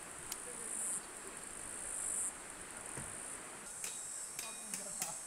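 Insects chirring in a steady high-pitched chorus, swelling louder twice in the first half. A few faint clicks come near the end.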